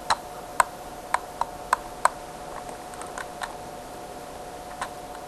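Scattered light plastic clicks of controller or computer buttons: about six in the first two seconds, then a few fainter ones, over a faint steady whine.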